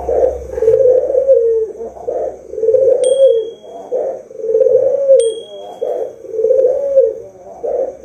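White Barbary dove (puter) cooing: a low, rolling coo repeated about every one and a half to two seconds. Two brief high chirps sound faintly over it, about three and five seconds in.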